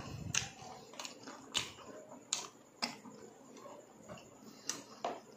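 Crisp crunching as deep-fried pork intestines are chewed close to the microphone, about seven sharp crackles at uneven intervals.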